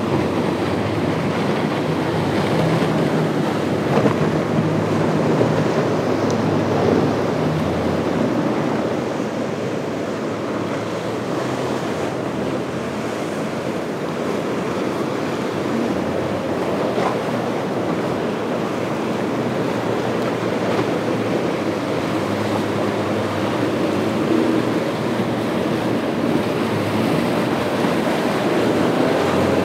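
Steady wash of surf and choppy water with wind buffeting the microphone, and a boat's motor running underneath.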